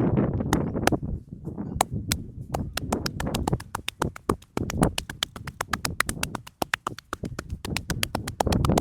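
Hands tapping rapidly on a head during a head massage: a few scattered taps at first, then from about two and a half seconds in a fast, even patter of roughly eight taps a second over a low rubbing rustle.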